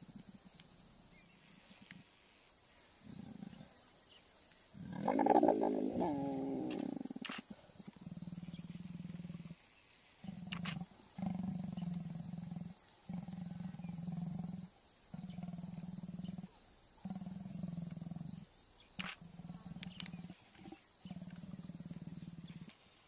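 Mating leopards growling: a loud snarl about five seconds in, then a run of low, drawn-out growls, each about a second long, coming every second and a half or so.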